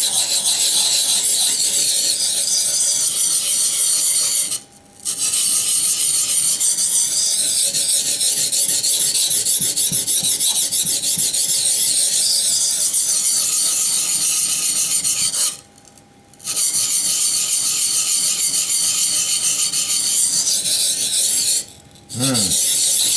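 ESEE 6 knife's steel blade ground back and forth on a wet waterstone, a continuous loud gritty scraping in rapid strokes, while reprofiling the edge. The sharpening stops briefly about 5, 16 and 22 seconds in.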